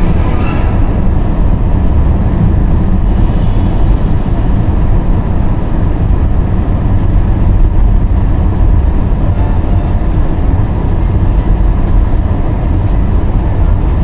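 Steady low rumble of a car's engine and tyres heard from inside the cabin while driving on a snow-covered road, with the car radio playing faintly underneath.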